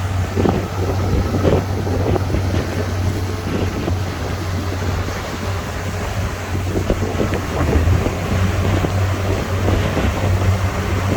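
Diesel engine of heavy earthmoving machinery running steadily with a low drone, with wind noise on the microphone.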